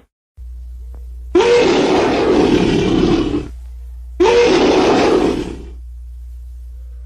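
Two loud elephant calls, each about two seconds long, opening with a short pitched note and turning rough and noisy, over a low steady hum.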